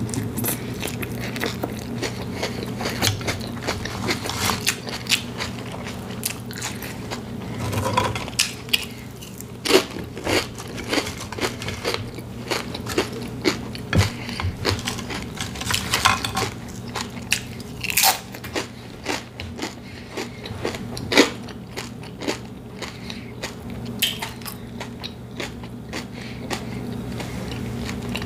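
Close-miked biting and chewing of a ham and cheese sub sandwich, with many irregular crunches and wet mouth clicks over a steady low hum.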